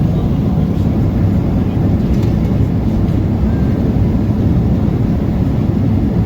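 Steady low rumble of airflow and engine noise inside the cabin of a Boeing 777-300ER airliner in flight.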